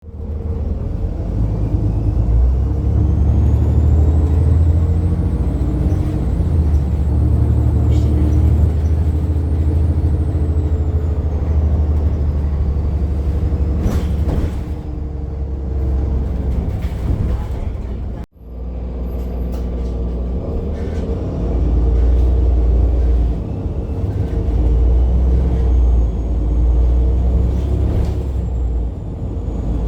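Iveco Tector 7 six-cylinder diesel of a Heuliez GX137 city bus under way, a deep engine rumble with a high turbocharger whistle that rises slowly, holds and then falls away. The sound cuts out abruptly for a moment past the middle, then the engine rumble and a second, steadier turbo whistle return.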